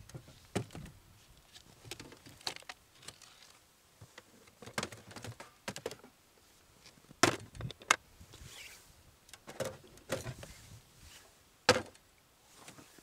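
Gear being handled on and around a homemade tracked snow tow: scattered knocks, clunks and clatters. The loudest clunk comes near the end, as a plastic box is set down on top of the machine.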